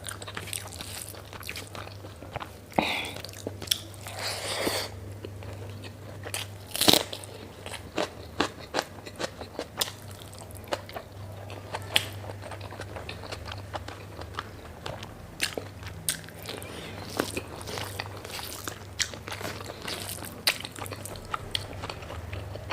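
Close-up eating sounds: a person biting and chewing food, with irregular sharp crunches and wet mouth clicks. A faint steady low hum runs underneath.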